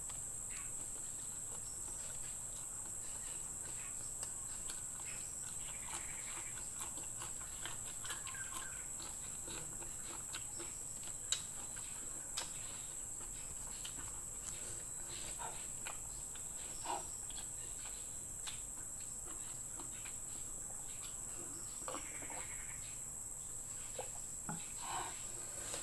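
Close-miked eating sounds: chewing, scattered short clicks and small mouth noises, one sharp click about 11 seconds in. A steady high-pitched insect drone runs underneath.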